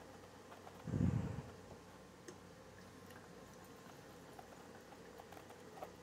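Stündenglass gravity bong turning over, water draining between its glass chambers as faint scattered clicks and ticks. A brief low thump about a second in.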